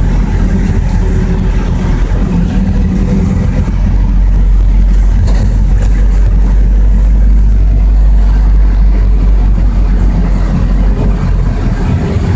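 City bus driving, heard from inside the passenger cabin: a steady low engine and road rumble, swelling a little about four seconds in and easing off near the end.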